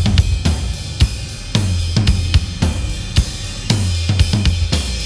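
Background music: a drum-kit beat with cymbals and a bass line.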